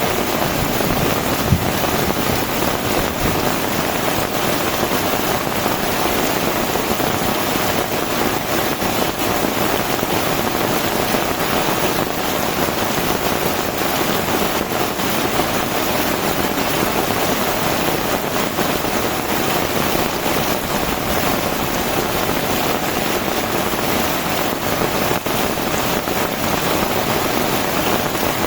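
Heavy rain falling steadily, a dense unbroken hiss of drops, with one sharp tap about a second and a half in.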